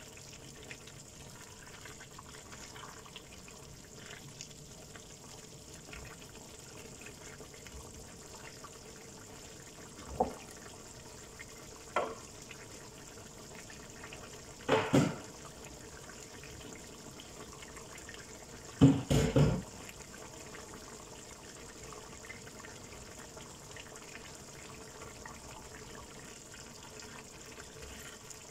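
Tomato-based chicken afritada sauce simmering in a frying pan on a gas burner: a steady low bubbling hiss as the sauce thickens and reduces. A few short knocks break through it, the loudest about two-thirds of the way through.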